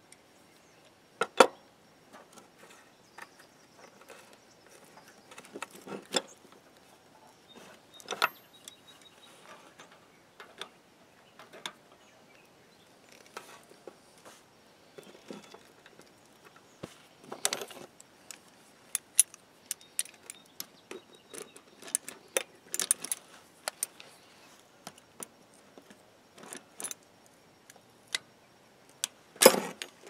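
Irregular clinks and clicks of small metal hand tools and wire-rope clamp parts being handled and set down on a wooden board while a steel winch cable is worked through a hook. The sharpest clicks come about a second in and just before the end.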